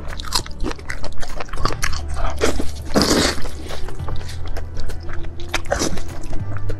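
Close-miked wet eating of saucy intestines: lip smacks, sucking and chewing in quick irregular clicks, with a longer slurp about three seconds in. Soft background music with a low bass underneath.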